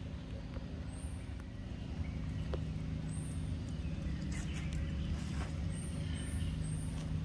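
A steady low hum of a running engine, with a few short high chirps over it.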